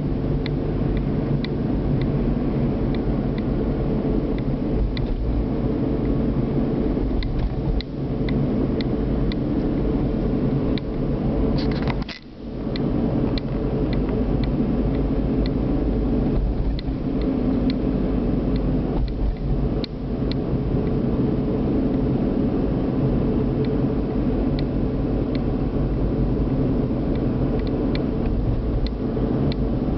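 Inside a car driving slowly down a street: a steady engine and road rumble, with faint light ticks scattered through it. The sound briefly drops away about twelve seconds in.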